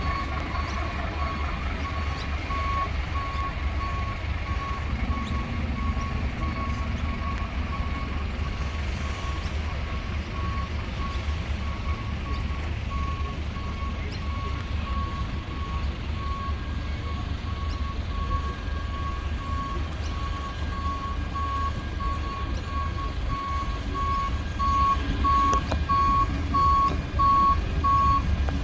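A vehicle reversing alarm beeping steadily at one pitch, about once a second, over the low rumble of a fire truck's diesel engine, which grows louder near the end as the truck pulls away.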